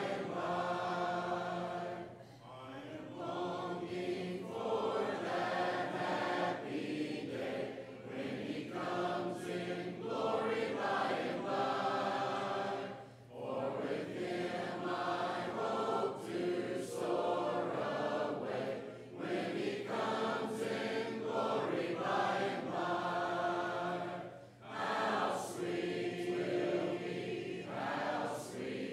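Congregation singing a hymn a cappella, many voices together without instruments, in long phrases with short breaks for breath between them.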